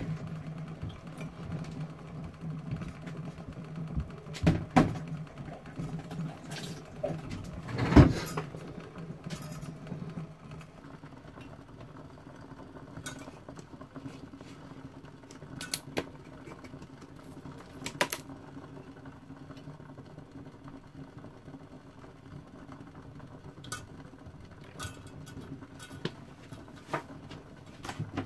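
Kitchen handling sounds: a low steady hum with scattered knocks and clicks. The loudest knock comes about eight seconds in.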